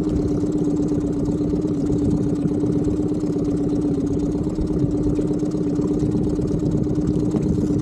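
Boat's outboard motor idling, a steady unchanging drone.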